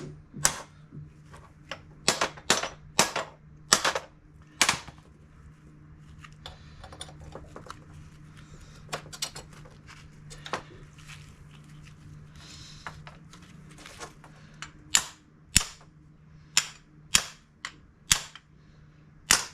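Sharp hammer strikes on steel, in uneven bunches with a lull midway, driving a tight-fitting hinge pin into a 1970 Chevelle door hinge.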